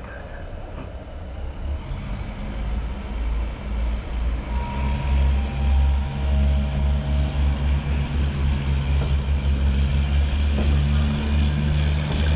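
SA108 diesel railcar pulling away from the platform. Its diesel engine drone grows louder from about two seconds in as it accelerates, with a pulsing low rumble.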